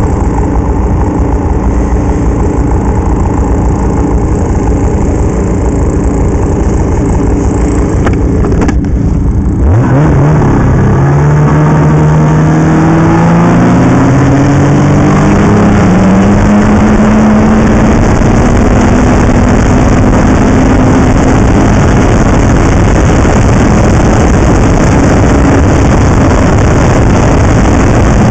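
Snowmobile engine running steadily under way. About nine seconds in the engine note briefly drops away, then climbs in pitch as the machine accelerates and settles into a steady cruise, under a loud continuous rush of noise.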